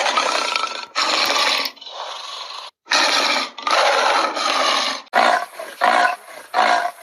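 Loud wild-animal calls: long harsh calls first, then from about five seconds in a run of short, rhythmic calls at about two a second.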